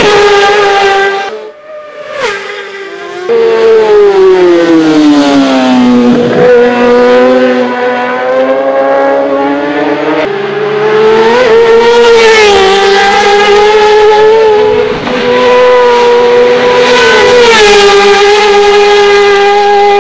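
Kawasaki ZX-6R race bike's inline-four engine through an Akrapovič race exhaust, running at high revs on full throttle as it passes at speed, over several edited passes. The pitch falls as the bike goes by and climbs again as it revs through the gears; the engine goes quieter about two seconds in before another pass comes in.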